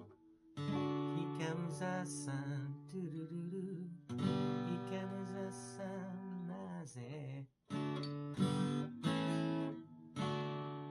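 Closing music: phrases of sustained, ringing chords, broken by short pauses, the last chord dying away at the end.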